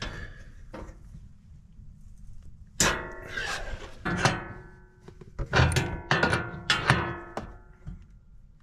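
Adjustable wrench knocking and clinking against the metal rails and sheet-metal plate of a rooftop snow splitter while its clamp bolts are tightened, each hit ringing on briefly. There is a sharp ringing hit about three seconds in, another about a second later, then a quick run of clinks near the end.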